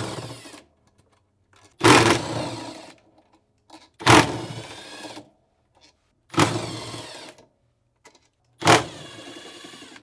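Cordless drill-driver with a 10 mm socket backing out a washer's motor stator bolts, in four short runs about two seconds apart. Each run starts suddenly and fades over about a second, with the motor's whine sliding in pitch.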